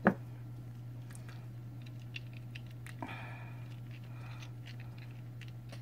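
Hands flexing and squeezing a soft silicone mold to work a cured resin casting loose, giving small squishing and clicking sounds, with one sharp knock just after the start. A steady low hum runs underneath.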